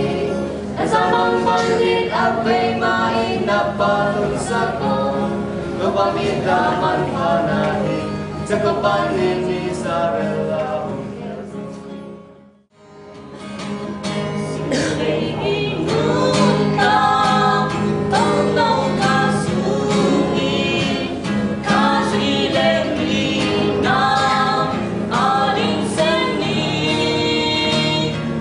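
A man and a woman singing a gospel song as a duet to acoustic guitar. About twelve seconds in the song fades out, and another man-and-woman duet with acoustic guitar starts up.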